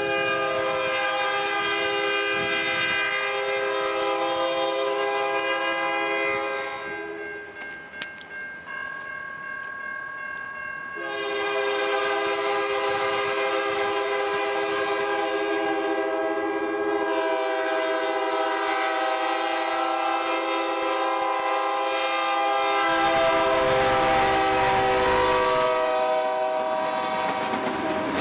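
Norfolk Southern diesel locomotive's air horn sounding a chord in two long blasts, the first about seven seconds and the second about sixteen, as the train approaches. Near the end the horn's pitch drops slightly as the locomotive passes, and the diesel engine's rumble comes up under it.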